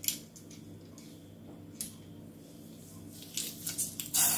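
Metal garlic press crushing garlic cloves: faint squeaks and scratchy clicks of the handle and squeezed garlic, one click about two seconds in and a short cluster of them near the end, over a steady low hum.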